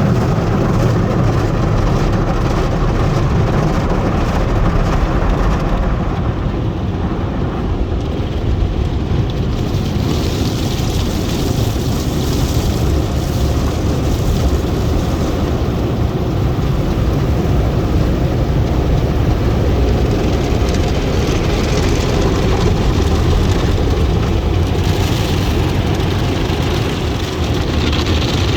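Tunnel car wash machinery running: a steady low rumble with a hissing noise that swells a couple of times and fades.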